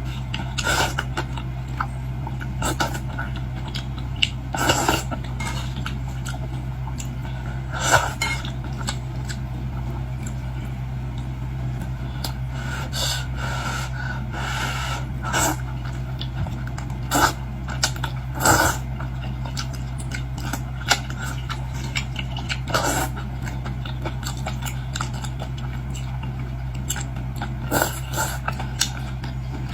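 Utensils clinking and scraping against a bowl, with short bursts of eating noise, over a steady low hum.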